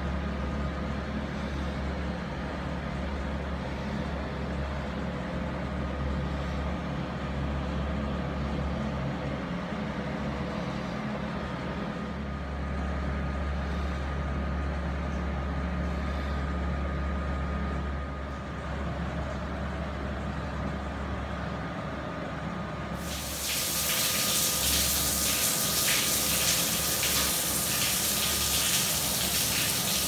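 A low steady hum, then, about three quarters of the way through, a shower head starts spraying: a loud, steady hiss of water jets with splashing.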